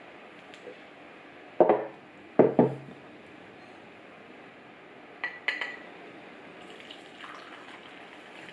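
Dishes and cups knocking and clinking on a wooden table: three loud knocks in the first three seconds, lighter ringing clinks a little past halfway. Near the end, milk tea pours from an enamel milk pan into a cup.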